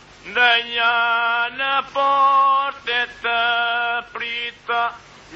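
Himara polyphonic folk song: a singing voice delivers a phrase in short, separate held notes with brief breaks between them.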